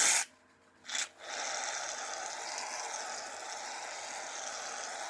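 Aerosol can of shaving cream spraying foam: a short hiss at the start, a click about a second in, then a long steady hiss.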